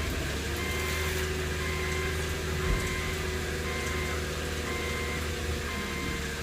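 2006 Subaru Tribeca's 3.0 L flat-six idling steadily just after starting; the engine has a cylinder 1 misfire code set. A short warning chime from the car beeps about once a second over the idle.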